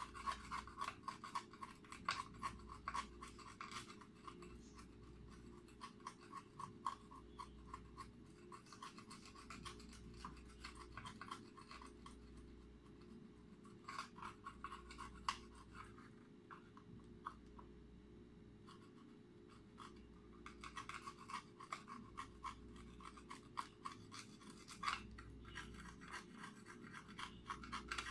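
Faint scratching and small clicks from a hand tool working on wires and LED modules in a metal sign frame, coming in quick irregular runs with quieter pauses between.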